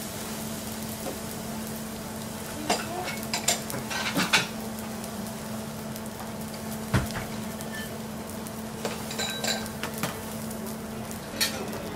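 Fried rice sizzling steadily on a flat steel teppanyaki griddle, with a low steady hum underneath. A few separate metal and crockery clinks and knocks come through, one about every second or two.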